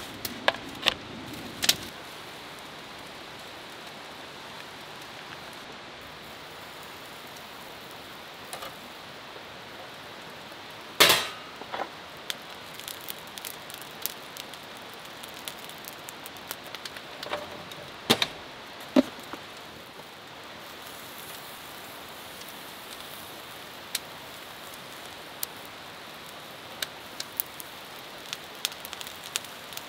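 Thin beef slices sizzling on a wire-mesh grill over charcoal: a steady hiss with small pops and crackles that grow thicker toward the end. A few sharp knocks stand out, the loudest about eleven seconds in.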